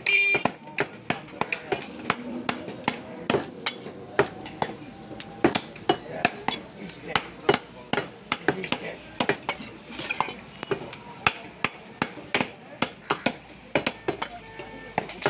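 Butcher's cleaver chopping raw beef on a wooden stump block: repeated sharp, irregular knocks at about two to three a second.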